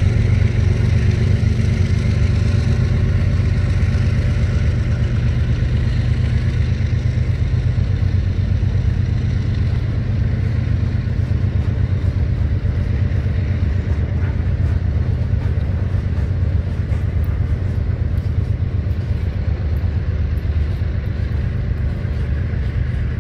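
Freight train of covered hopper cars rolling past: a steady rumble and clatter of steel wheels on rail, easing slightly toward the end.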